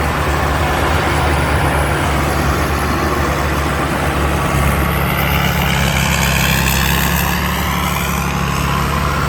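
TAMCO combine harvester with its six-cylinder 6HK diesel engine running steadily under harvesting load: a constant low drone mixed with the clatter of the machinery. A higher whine slides up and down in pitch through the second half.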